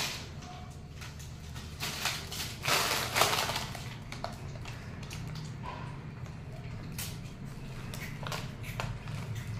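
A foil chips packet crinkling and rustling as a young monkey pulls at it and picks chips out, in loud bursts about two to three seconds in, then fainter scattered crackles.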